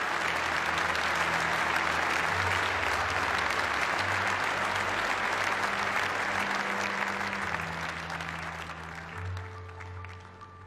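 Audience applauding, with music playing low, steady bass notes underneath; the applause fades out near the end.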